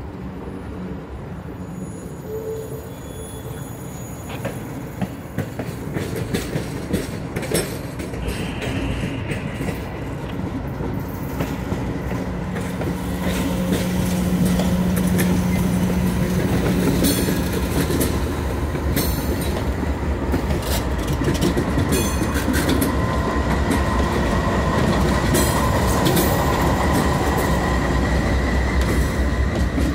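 Inspection train passing close by: a passenger business car rolls past with its wheels clicking over rail joints, then the diesel locomotives come by and the sound grows louder, with their engines running. A faint steady wheel squeal sounds in the last third.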